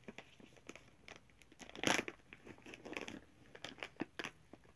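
Close-up chewing of chewy dried coconut banana bites, with crinkling of the snack packaging; the loudest rustle comes about two seconds in.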